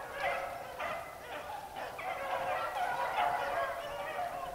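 A pack of beagles baying together, many overlapping voices in a continuous chorus: the hounds in full cry running a rabbit.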